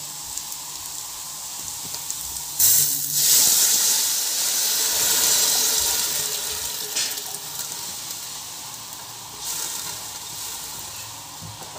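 Water poured into a pot of onions and whole spices frying in hot ghee: a low sizzle, then about two and a half seconds in a sudden loud hiss as the water hits the hot fat, dying down over several seconds.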